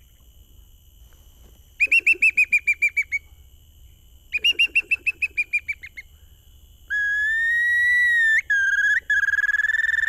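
A small bamboo bird whistle blown in imitation of a whimbrel's call: two quick rippling trills of about a dozen short notes each, then a long held whistle note, broken briefly twice.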